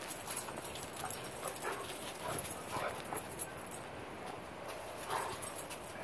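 A dog barking several times in the distance, short separate barks over a steady outdoor hiss.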